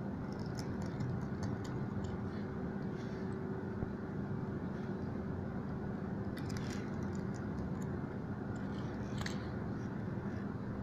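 Steady low hum of room noise, with faint scattered clicks and ticks from a pointed tool and fingers handling the small connectors and parts of an opened tablet's mainboard, in a cluster near the start and a few more later.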